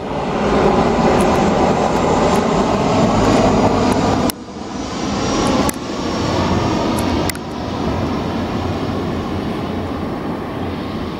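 Airliner engine noise from landing aircraft, a dense rumbling roar. It changes abruptly about four, six and seven seconds in as short clips are cut together.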